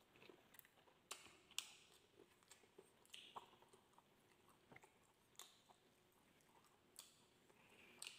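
Faint, close-up mouth sounds of a person chewing grilled skewered meat and rice: irregular wet clicks and smacks, the loudest about a second and a half in.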